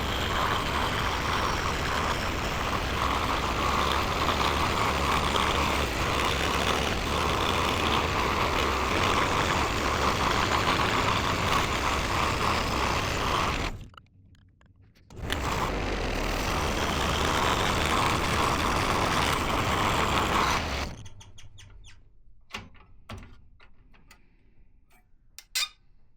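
Electric scroll saw running steadily as its blade cuts through wood. It stops about 14 seconds in, starts again a second later, and stops for good about 21 seconds in, followed by a few light clicks and knocks.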